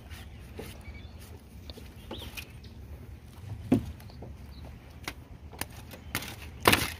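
Hands and a knife handling a freshly cut jackfruit over foil and plastic wrapping: scattered clicks and rustles, a sharp knock about four seconds in, and a louder crinkly rustle near the end, over a low steady rumble.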